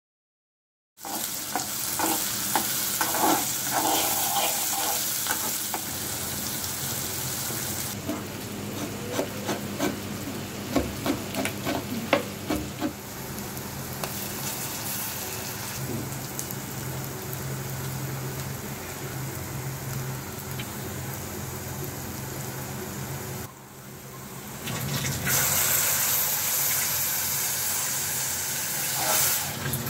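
Sliced onions sizzling as they fry in oil in a metal pot, starting about a second in, with a spoon stirring and knocking against the pot through the first half. The sizzle dips briefly about two-thirds through, then comes back louder near the end.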